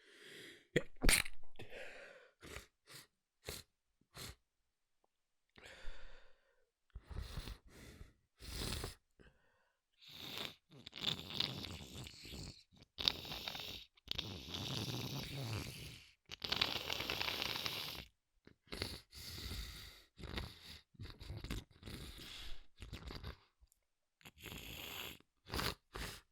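A person trying to sneeze quietly: a run of held-back sneezes and sharp breaths from a tickle in the nose. The loudest burst comes about a second in, and there are longer noisy stretches between about ten and eighteen seconds in.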